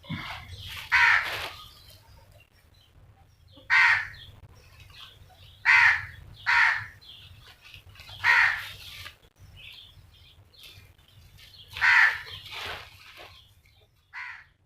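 A crow cawing repeatedly, about eight harsh calls spaced irregularly, some in close pairs.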